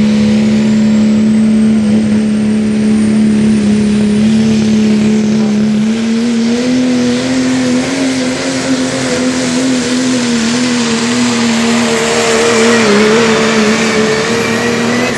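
A 1996 Dodge pickup's 5.9L Cummins turbodiesel held at full throttle under load while pulling the sled. The engine note is loud and steady and rises a little partway through, with a high turbocharger whistle climbing in pitch over the first few seconds.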